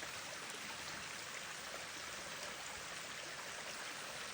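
Small stream of rainwater running over rocks, a steady rushing noise.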